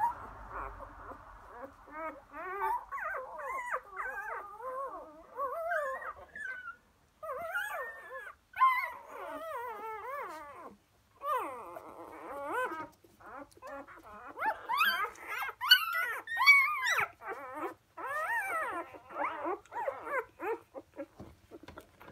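Four-day-old Labrador puppies whimpering and squealing: a long run of short, wavering squeaky cries that rise and fall in pitch, loudest about 15 to 17 seconds in.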